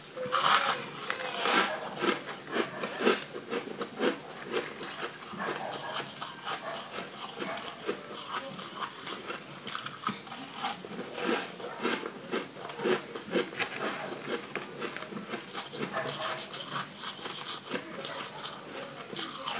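Biting into and chewing crumbly yellow frozen sweet ice, a dense run of irregular crunching and crackling mouth sounds, loudest at a bite near the start.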